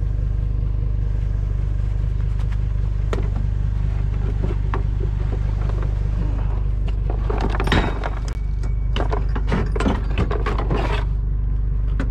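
Pickup truck engine idling steadily. From about seven seconds in, a run of knocks and scrapes as a plastic utility cart is handled and set into the truck bed.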